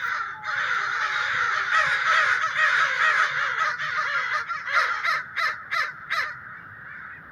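Several American crows cawing, their calls overlapping in a dense chorus, with a run of short, sharp caws near the end before it thins out.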